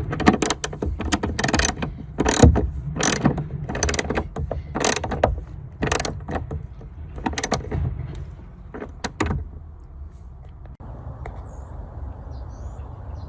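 Hand-tool work on a car battery: a string of short metallic clicks and clatters, roughly one or two a second, which stops after about nine seconds and leaves a steady low noise.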